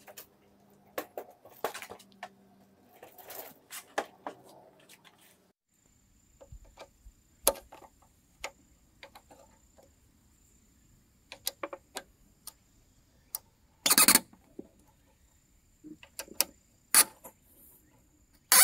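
Scattered light metallic clicks and taps of hand work on a brush cutter's right-angle gear case: a hex key turning the cap bolts that hold the sheet-metal mower box, with a louder short noise late on.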